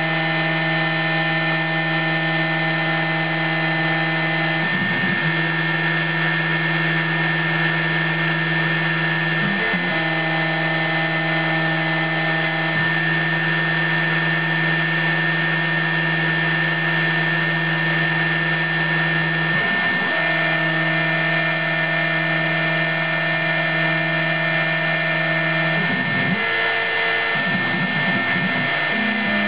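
Proxxon high-speed rotary tool spinning steadily on an Emco F1 CNC mill while its engraving bit cuts traces into copper-clad PCB board. The steady whine breaks into brief wavering changes of pitch a few times, longest near the end.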